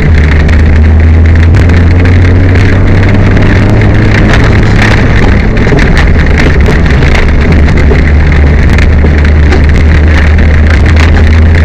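Peugeot 205 rally car driven at speed. The engine and road noise inside the cabin are very loud, with a heavy, steady low drone and many sharp ticks and rattles throughout.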